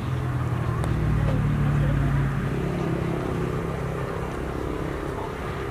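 An engine running steadily with a low hum, like a motor vehicle's.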